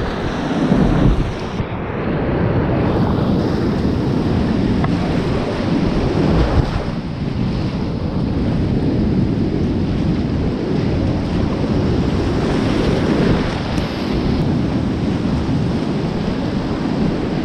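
Whitewater rapids rushing loudly around a kayak as it runs down through the rapid, with water and wind buffeting the microphone.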